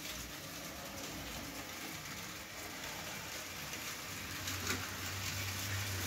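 Model railway train running: a steady, fine rattling hiss of small wheels on the track, with a low hum setting in about four seconds in.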